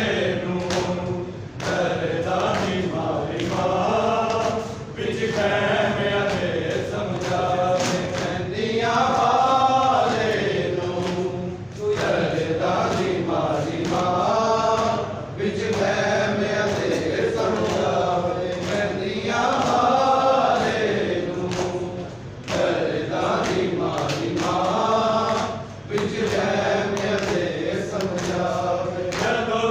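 Men chanting a Punjabi noha (Shia lament) together in long, wavering sung phrases, with repeated open-palm slaps on the chest (matam) sounding under the singing.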